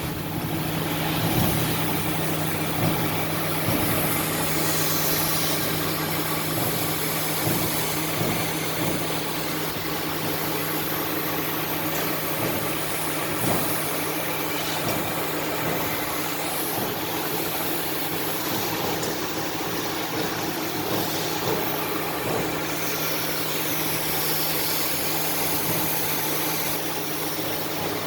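CNC laser cutting machine running: a steady low hum under a hiss, with high whines rising and falling as the cutting head's drive motors speed up and slow down.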